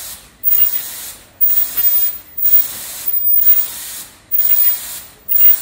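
Automatic KN95 mask production machine running: a loud hiss that breaks off briefly about once a second, in time with the machine's cycle.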